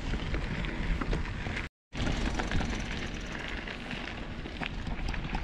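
Riding an e-bike over a gravel dirt track: a steady rumble of wind on the microphone and tyre noise, with scattered small clicks and rattles as the bike rolls over stones. The sound cuts out completely for a moment a little under two seconds in.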